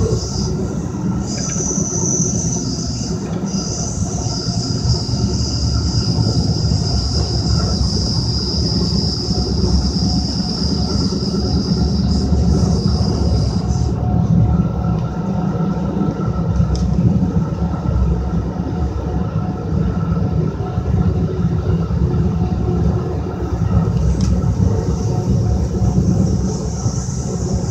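Passenger train ride heard from inside the car: a steady, loud rumble of the wheels running on the rails. A thin high whine runs over it until about halfway, stops, and returns near the end.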